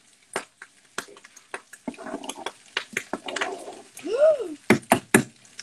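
Stovetop cooking clatter: a run of sharp clicks and knocks from a pot, frying pan and utensils, with stretches of scraping between them and three loud knocks near the end. A little after four seconds comes a short whine-like sound that rises and falls in pitch.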